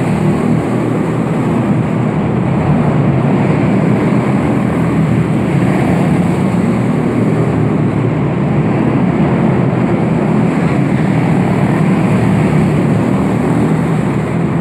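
Quarter midget race cars' small engines running together at speed as the cars lap the track, a loud, steady drone.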